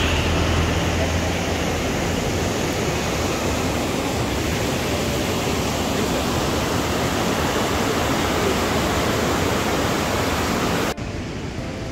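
Water of the River Avon pouring over Pulteney Weir: a steady, even rush of white water that cuts off suddenly about eleven seconds in.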